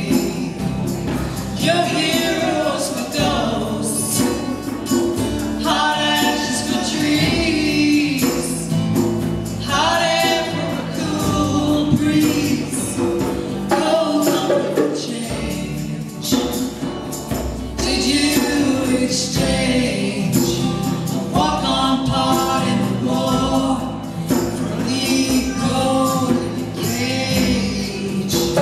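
Live band playing a song: several voices singing in phrases over acoustic guitar and keyboard, with shaken hand percussion keeping time.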